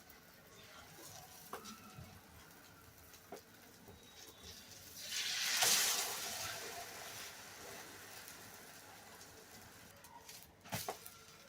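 Onion masala egg omelette frying in a pan: a low sizzle, then a louder burst of sizzling about five seconds in that fades away over a couple of seconds, with a few light knocks along the way.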